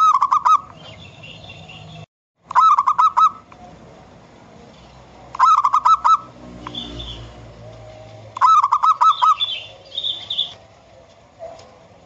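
Zebra dove (perkutut) singing: four short bursts of quick, trilled cooing notes, about three seconds apart, with faint higher chirps in between.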